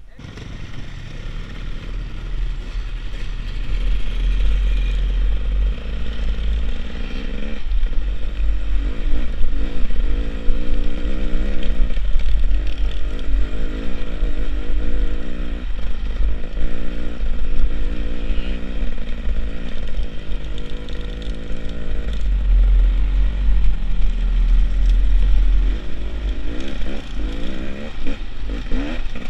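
On-board sound of an enduro motorcycle's engine as it is ridden. The revs build over the first few seconds, then rise and fall. Heavy wind rumble is on the microphone.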